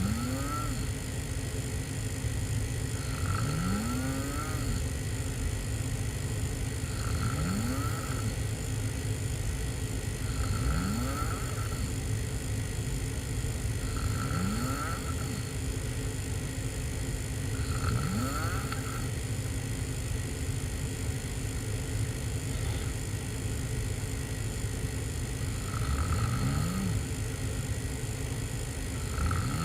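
A person snoring hard with the mouth open, lying on the back. Each snore rises in pitch, and they come about every three and a half seconds, with one longer pause of several seconds before the last two. A steady low background noise runs underneath.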